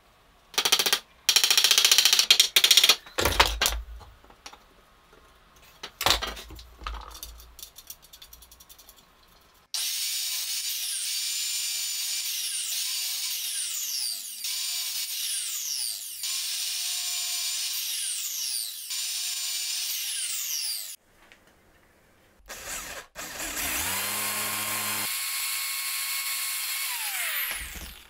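Workshop sounds in sequence: irregular knocks and clatters of wooden parts being fitted by hand, then an electric sliding compound miter saw running for about ten seconds, its pitch rising and falling several times. After a short pause another power tool spins up, runs steadily and stops near the end.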